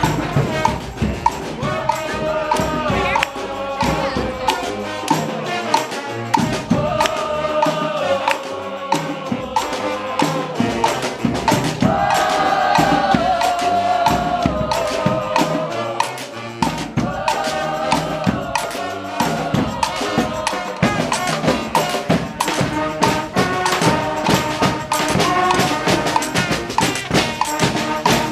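Community street band playing live: horns hold melody lines over busy drums and hand percussion. The horns rise to a louder, higher passage about halfway through.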